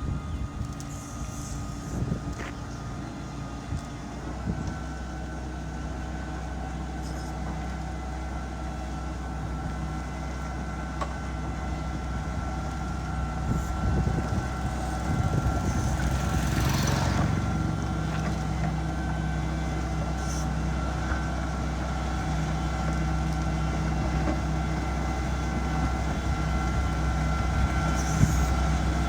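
Mitsubishi MG430 motor grader's diesel engine running steadily at working speed, with a faint steady whine above it. It picks up slightly about four seconds in, and a brief louder rush of noise comes about halfway through.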